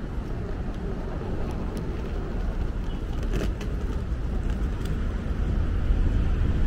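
City street noise: a low rumble of road traffic mixed with wind buffeting the microphone, slowly getting louder toward the end.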